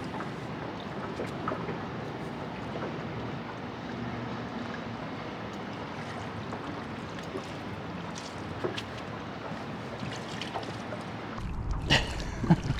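Steady rush of river water below the dam, with a few faint clicks. About 11 seconds in, wind buffets the microphone and a few louder knocks of handling come in.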